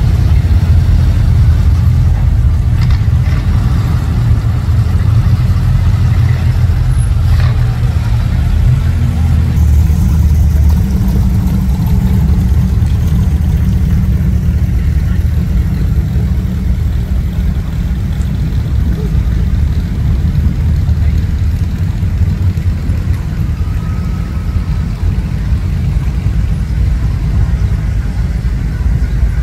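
Engines of classic cars, pickups and hot rods running at low speed as they creep past one after another in a line, a steady deep engine rumble.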